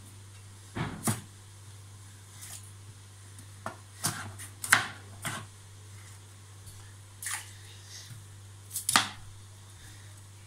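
Kitchen knife chopping broccoli on a plastic cutting board: irregular sharp knocks as the blade hits the board, sometimes in quick pairs, over a steady low hum.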